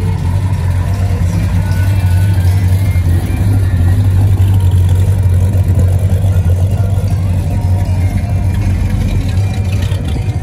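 Car engine running steadily, a deep continuous hum.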